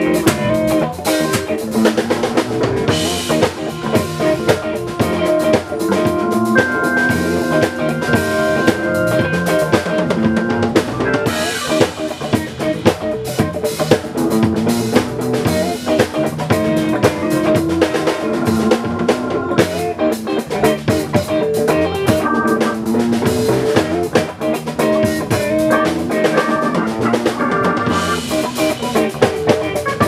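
Live band playing an instrumental passage: a drum kit with snare, rimshots and bass drum keeping a steady beat under held melodic notes from the other instruments.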